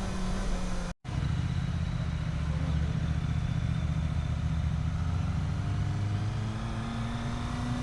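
Kawasaki motorcycle engine running while riding, its pitch rising slowly over the last few seconds as it speeds up. A brief dropout about a second in cuts the sound off for an instant.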